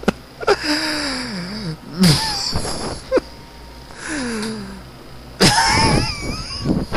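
A person laughing hard in four breathy bouts, each sliding down in pitch; the last bout, near the end, is the loudest.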